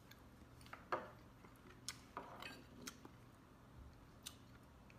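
Several faint, separate clinks of a fork against a glass plate.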